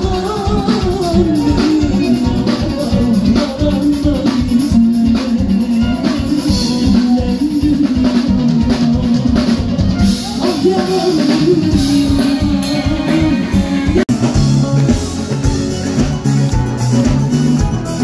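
Live concert music: a female singer sings into a microphone over a band with drum kit and guitar. The sound cuts out for an instant about two-thirds of the way through, and after that the bass comes in heavier.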